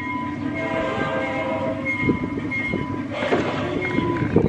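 Miniature ride-on passenger train moving off along small-gauge track, its wheels clicking and rattling over the rails under a steady whine. A short hiss comes about three seconds in.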